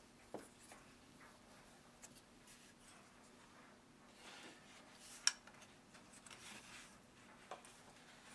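Faint handling of a camera clamp mount: soft rubbing and a few small clicks, the sharpest about five seconds in.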